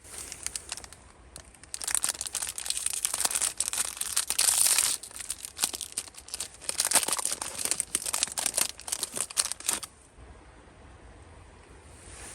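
Crinkly packaging being handled, crumpled and torn open in a dense run of rustling and sharp crackles that stops abruptly near the end.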